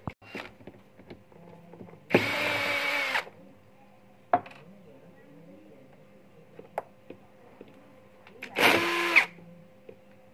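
Cordless drill-driver running in two short bursts, about a second long and then under a second, turning screws in the plastic housing of a backpack sprayer, with small clicks and taps of handling in between.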